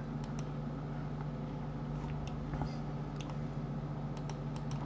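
A few short, sharp computer mouse-button clicks, scattered irregularly and bunched near the end, over a steady low hum.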